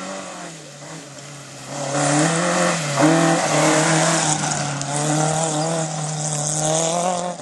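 Rally car engine running hard as the car passes close on a dirt stage, its pitch fairly steady with small dips, over a hiss of tyres scrabbling on the loose surface. It swells about two seconds in, is loudest about a second later, and drops away at the very end.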